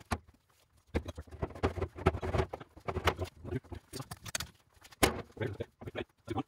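Irregular clinks, knocks and rustling of metal tools and engine parts being handled on a bare engine block and steel shop cart, with sharper clinks about three and five seconds in.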